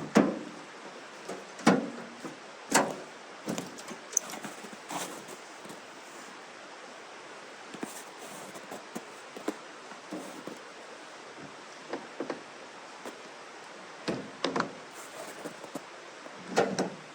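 A series of scattered knocks and clunks, the loudest bunched near the start and again near the end, with quieter taps between.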